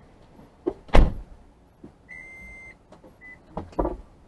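Car doors thudding shut: a heavy slam about a second in and two more bangs near the end. In between, a car chime sounds, one held tone about two seconds in and a short beep after it.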